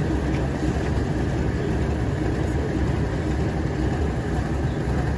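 Heritage diesel locomotive engine running steadily.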